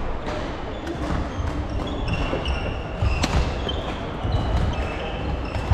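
Badminton rally in a large sports hall: court shoes squeaking in short chirps on the wooden floor, sharp racket hits on the shuttlecock (the loudest about three seconds in), and thudding footsteps.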